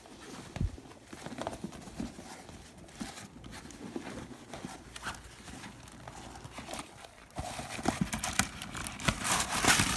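Handling noise from a leather handbag being opened and rummaged through: irregular light knocks and rustling, getting busier and louder over the last couple of seconds.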